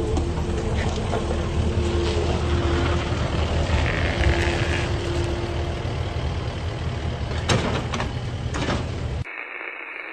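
Kubota SVL75-2 compact track loader's diesel engine running, with a low rumble and a steady whine over it, and a couple of sharp clanks near the end. In the last second it cuts off suddenly and gives way to crackling static.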